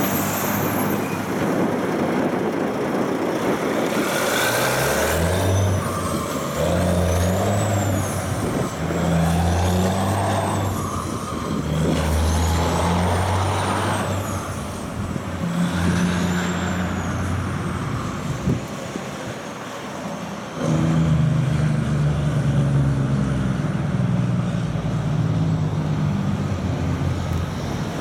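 Loaded log truck's diesel engine pulling away and working up through the gears, its pitch climbing and dropping at each shift, after a short hiss of air about four seconds in. About twenty seconds in, a second heavy truck's engine comes in loud.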